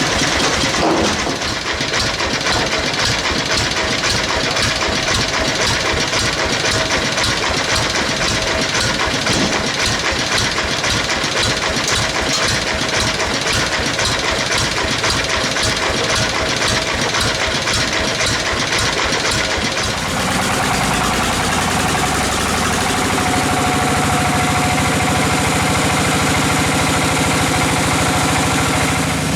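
Sawmill machinery running with a steady engine drone. About twenty seconds in, the sound shifts from a fast, even pulsing to a smoother hum.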